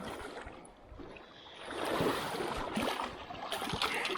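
River water splashing and sloshing close by, swelling twice, with a few small knocks, as a freshly landed rainbow trout is handled in the water.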